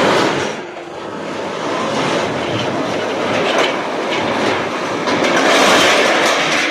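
Loud, continuous mechanical clatter with frequent short knocks, swelling toward the end.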